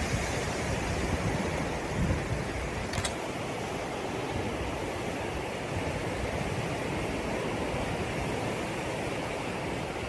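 Blizzard wind blowing steadily through trees, with low gusts buffeting the microphone in the first couple of seconds and a brief click about three seconds in.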